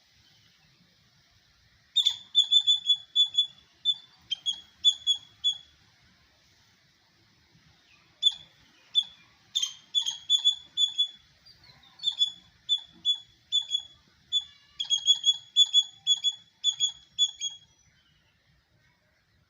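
Squirrel chirping: rapid, high-pitched chip calls, about three or four a second, in four bouts separated by short pauses.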